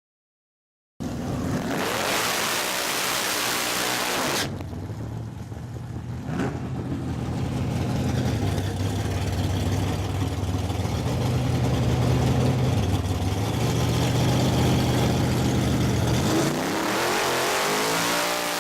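Drag race car engines: a loud rushing noise for the first few seconds, then the engines idle with small shifts in pitch, and near the end they rev hard with rising pitch.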